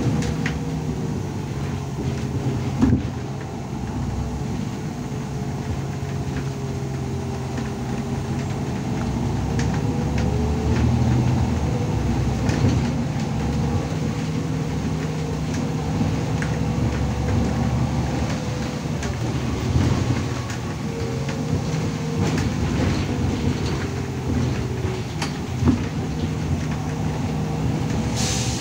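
Irisbus Citelis 12 m city bus heard from inside the cabin while driving: a steady low engine and drivetrain hum with a whine that slowly rises and falls with speed, and scattered small clicks and rattles.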